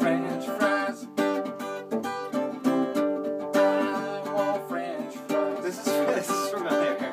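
Acoustic guitar strummed in chords with a steady rhythm, the chords changing as it goes.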